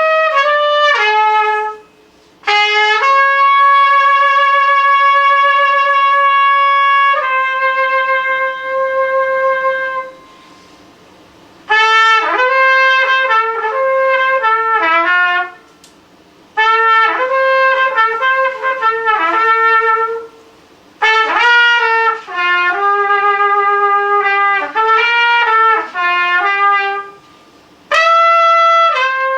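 Unaccompanied trumpet playing a free solo: a few long held notes, then quick runs of notes in short phrases, with brief pauses between phrases.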